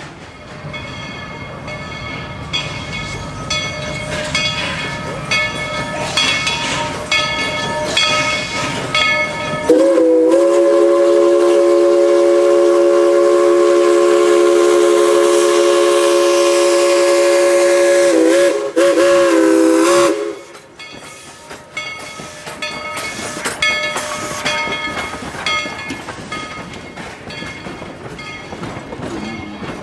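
Steam locomotive No. 190's chime whistle sounds one long blast of several pitches at once, starting about ten seconds in and held for roughly eight seconds, then a short second blast. Before and after the whistle, the train runs with a rhythmic metallic clatter.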